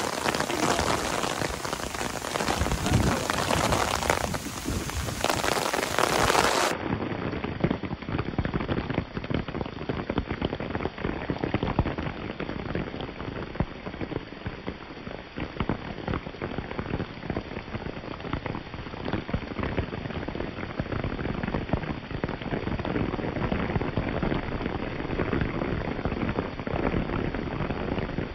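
Steady rain falling, with many individual drops ticking close by. The sound turns duller about seven seconds in.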